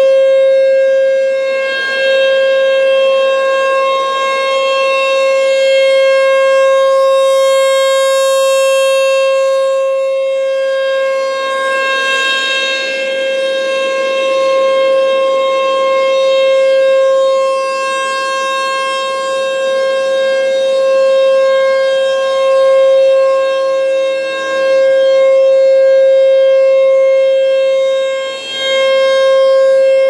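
American Signal T-135 rotating outdoor warning siren sounding a steady single-tone test alert. Its one unbroken pitch swells and fades as the horn turns toward and away.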